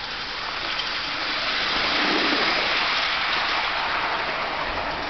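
OO-gauge model train, a Class 86 locomotive hauling five coaches, running along garden railway track. It makes a steady rushing rumble of motor and wheels on the rails that grows louder as it approaches, is loudest about two to three seconds in, then fades as it passes.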